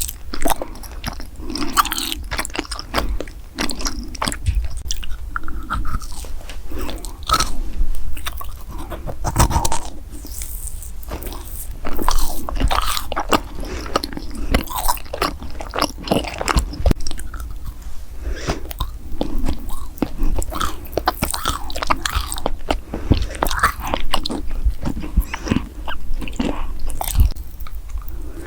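Close-miked mouth eating sounds: biting into and chewing crunchy food, with irregular crisp crunches and wet mouth sounds.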